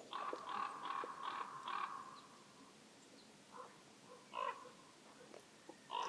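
Crow-family bird calling: a quick run of about five harsh caws in the first two seconds, then a few single calls further apart, the last near the end.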